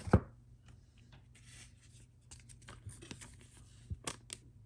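Trading cards being handled and a card slid into a plastic sleeve: soft rubbing and rustling with small clicks, a sharp knock just after the start and two sharp clicks near the end.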